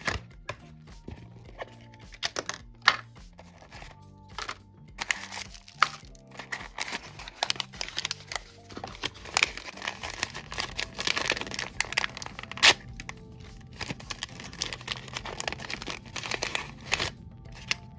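Blind-box toy packaging being torn open and crinkled by hand, a steady run of crackles and tearing, densest through the middle and with a couple of sharp snaps, over background music.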